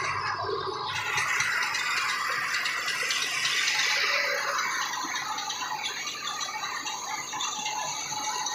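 Tractor-driven rice mill running, a dense steady rattle of paddy and machinery. A low engine hum under it fades out about a second in.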